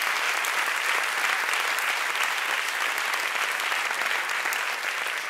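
Live theatre audience applauding steadily after a punchline, easing off slightly near the end.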